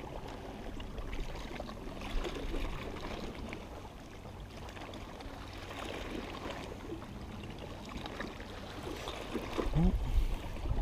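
Water lapping and trickling against a fishing boat's hull, with a few low rumbles of wind or handling on the microphone.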